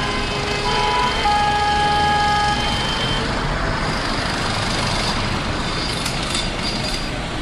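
Street traffic: several car horns honk, overlapping, over steady engine and road noise for the first three seconds, then the traffic noise goes on alone.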